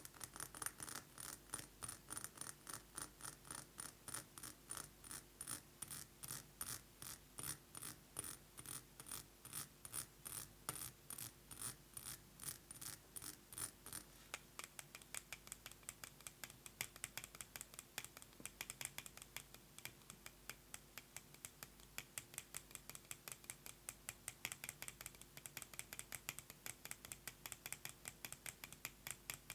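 Fast fingernail tapping on a perfume bottle, a quick even run of light clicks. About halfway through the taps turn lighter and come closer together.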